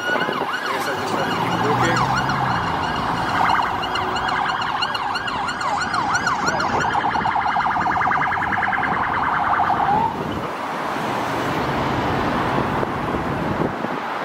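Emergency vehicle siren over road traffic: a slow rising and falling wail that switches to a fast yelp about seven seconds in, then stops about ten seconds in, leaving the traffic noise.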